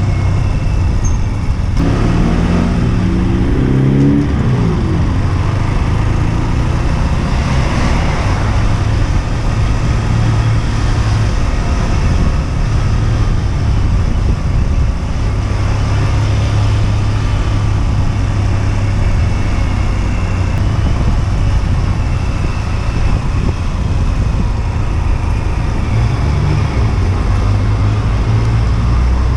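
Husqvarna Svartpilen 125's single-cylinder engine running under way, with wind and road noise. Its note shifts briefly a few seconds in, then holds steady.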